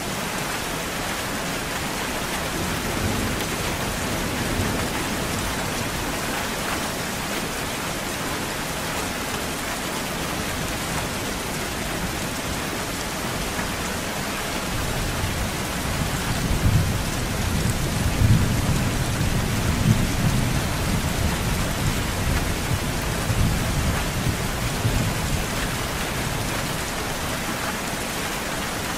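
Steady rain falling, with a long roll of thunder rumbling through the second half.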